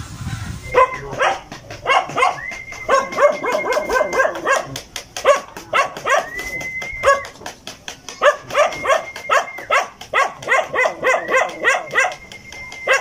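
A dog barking rapidly, over and over, starting about a second in, with a thin steady high whine in several stretches.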